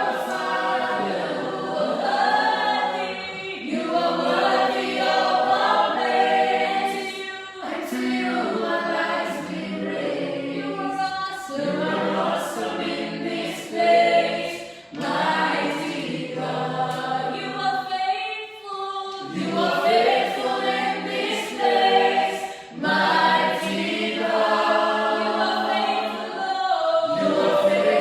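A church choir singing a worship song together, in phrases a few seconds long.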